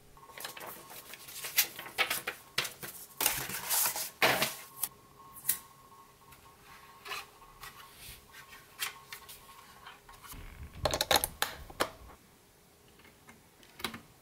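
Hands handling a plastic power adapter, its cord and a small plastic Wi-Fi router (Xiaomi Mi Router Mini): scattered clicks, taps and rubbing, busiest in the first few seconds and again about eleven seconds in. A last click near the end is the power plug being pushed into the router's socket.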